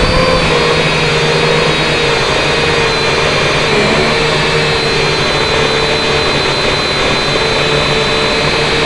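M:TECH Sky Drone Plus quadcopter's electric motors and propellers whining steadily in flight, heard close from the drone's onboard camera, the pitch dipping and shifting slightly a few times as the throttle changes.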